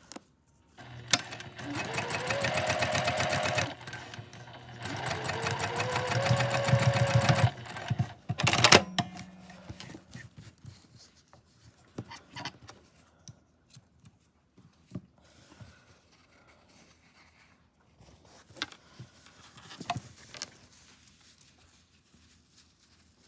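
Sewing machine stitching in two runs of a few seconds each, its motor speeding up at the start of each run, then a brief final burst. Soft scattered clicks and rustles follow.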